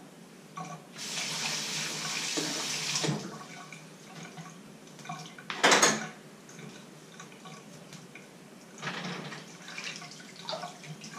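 Washing up by hand at a stainless steel kitchen sink: about a second in, the tap runs for about two seconds, with small clinks of crockery throughout. A little past halfway there is a single loud clank, and a shorter splash of water follows later.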